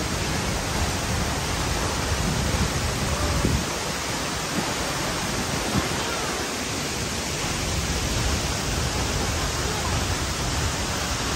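Waterfall pouring down a cliff onto the rocks below: a steady, even rush of falling water.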